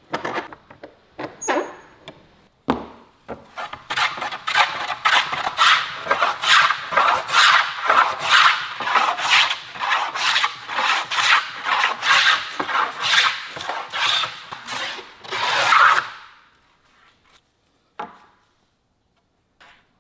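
A hand tool scraping over wood in quick back-and-forth strokes, about two or three a second. It starts in earnest about three seconds in and stops about four seconds before the end, with a few separate strokes before it.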